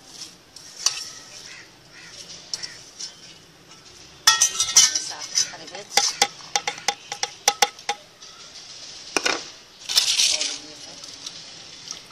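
Chopped herbs and green chillies scraped off a ceramic plate into a stainless-steel grinder jar: crockery and metal clinking. A quick run of sharp clinks and taps starts about four seconds in, then a single tap, then a short scrape near the end.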